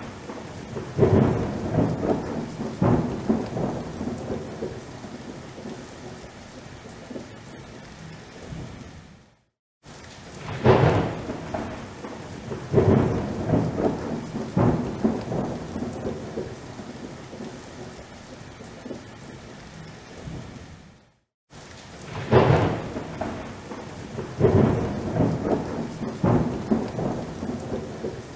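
Thunderstorm: heavy rain falling steadily under loud rolls of thunder. Each passage opens with several thunder peals that fade back into the rain. The same passage then repeats after a brief cut to silence, about every twelve seconds.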